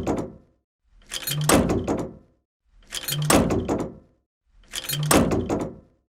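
Heavy metal tank door closing with a loud clank that rings off, repeated about every two seconds, three times.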